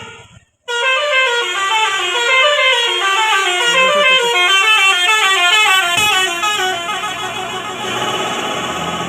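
Indonesian bus telolet horn (Basuri multi-tone horn) playing a fast melody of short, stepped notes. It resumes after a brief break about half a second in and thins out near the end.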